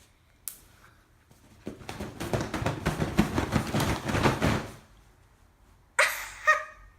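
Rustling and clattering of hands rummaging through a container of squishy toys for about three seconds, after a single click. Two short high-pitched sounds come near the end.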